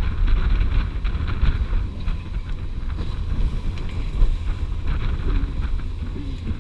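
Wind buffeting the microphone aboard a catamaran under way at sea, over a steady low rumble from the boat and the water.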